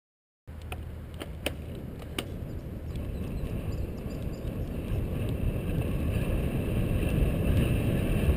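Wind rushing over the microphone and road noise of a bicycle rolling along a paved trail, a low fluctuating rumble that grows louder over the clip, with a few sharp clicks in the first couple of seconds.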